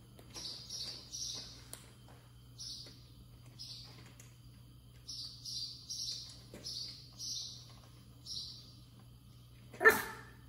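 A Pomeranian puppy gives one short, sharp bark near the end, begging for food. Before it comes a string of short, quiet, hissy high-pitched sounds in small clusters.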